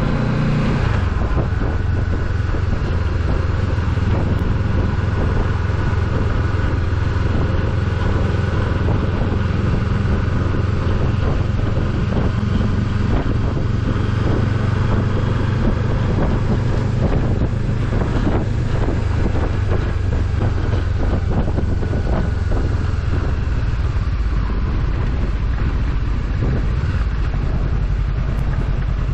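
Steady low rumble of a motor vehicle on the move, engine and road noise running evenly throughout.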